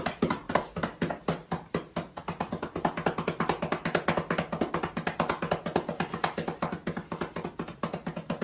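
Music made of a fast, even run of wooden tapping percussion, about eight taps a second.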